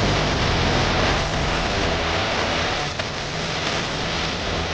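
RC scale crawler's electric motor and drivetrain running steadily as it crawls over rock, under a steady hiss of wind noise on the microphone. A single short click about three seconds in.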